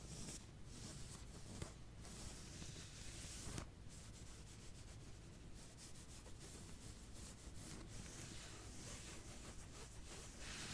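Scratching strokes close to the microphone, as a simulated back scratch. There are a few slow, spaced strokes at first, then from about halfway quicker strokes in close succession.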